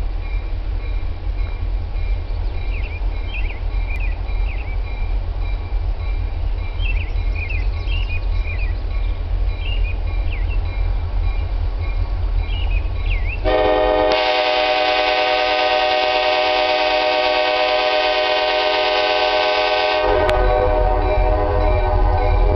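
Diesel freight locomotive running with a steady low rumble, birds chirping faintly over it. About thirteen seconds in, the locomotive horn sounds one long blast of about six and a half seconds, then the engine rumble carries on.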